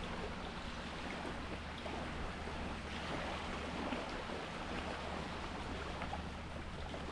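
Sea water washing and splashing steadily, with a steady low hum underneath.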